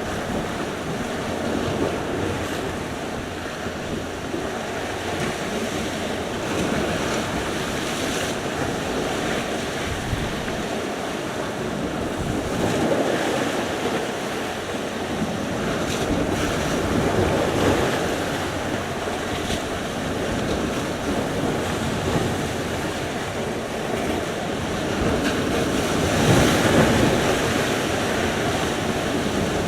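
Sea surf: waves breaking and washing on the shore, a continuous rushing that swells with each wave every few seconds, the loudest swell near the end, with some wind on the microphone.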